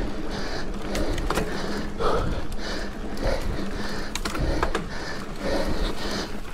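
A racer breathing hard and rhythmically, about one breath every half second, with a few sharp clicks and a steady low hum under it.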